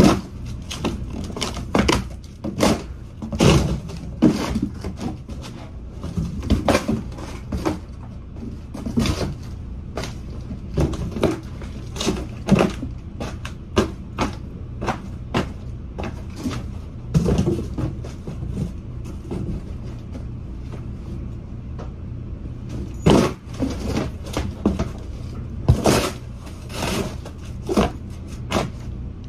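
Cardboard boxes being stomped flat under sneakers: irregular crunches and thumps of corrugated cardboard collapsing and tearing, over a steady low hum.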